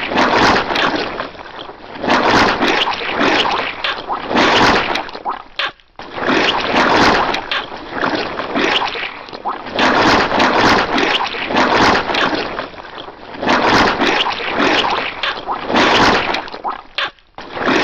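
Cartoon squashing sound effect: wet squelching and splattering, coming in loud surges about every two to three seconds, with a brief break about six seconds in.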